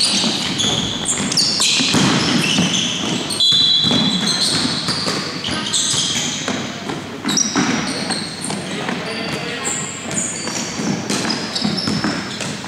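Basketball being dribbled on a hardwood court in a large hall, with short high sneaker squeaks and players' voices calling out.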